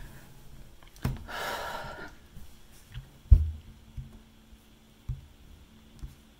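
A sharp click about a second in, then a breathy exhale lasting about a second. A louder low thump comes a little past three seconds in, followed by a few soft knocks.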